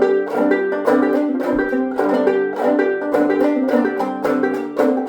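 Banjo-led old-time string music without singing: an instrumental break of quick, evenly picked notes.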